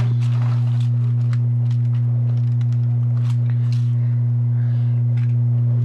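Loud, steady low electrical hum with a fainter higher overtone, with light scrapes and taps of a spatula spreading chocolate filling into a foil-lined baking pan.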